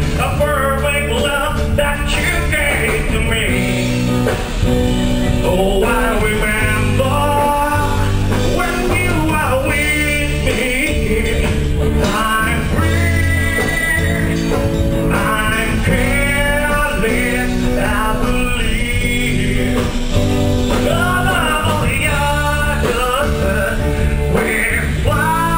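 A live band playing a song, a singer's voice carrying the melody over a steady bass line.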